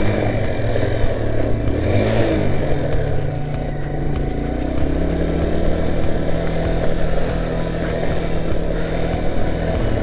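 Motorcycle engine running as the bike rides along a gravel dirt road, its pitch dipping and then rising again about two seconds in, then holding fairly steady, over a continuous rumble of road and wind noise.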